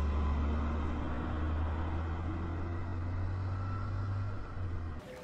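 Sport motorcycle's engine pulling away, its pitch rising, over a heavy steady low rumble. The sound cuts off suddenly near the end.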